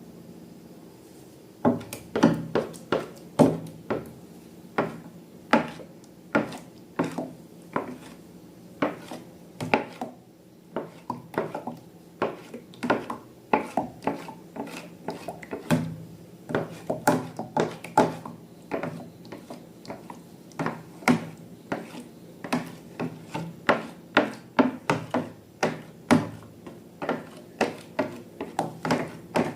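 Slime being worked: a run of sharp, sticky clicks and taps, about two or three a second, starting about two seconds in.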